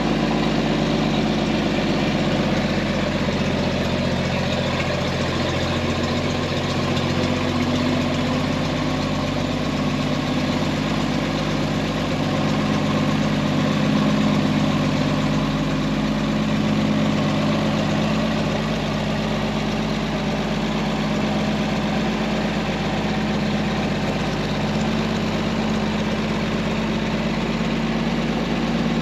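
1949 White WB-20 tow truck's carbureted gasoline engine running steadily, an even engine note throughout; it has been brought back to running order with a rebuilt carburetor, new fuel pump, coil and points.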